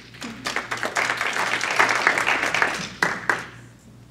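Audience applauding for about three seconds. The clapping builds quickly and dies away near the end.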